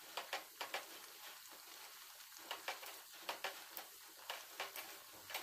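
Dough pieces deep-frying in hot oil in a steel kadhai: a faint hissing sizzle with many small sharp crackles and pops scattered throughout.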